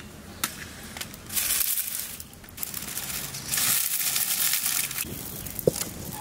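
Dry leaves and twigs crackling and crunching as they are pushed into a clay wood-fired stove being lit, after a short click from a match strike at the start. Near the end a single sharp metallic knock as the iron wok is set down on the stove.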